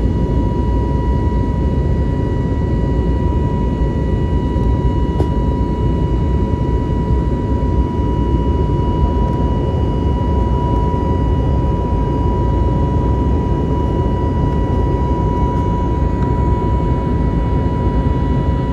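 Jet airliner cabin noise during the climb after takeoff: a steady roar of the engines and airflow, with a constant thin whine on top.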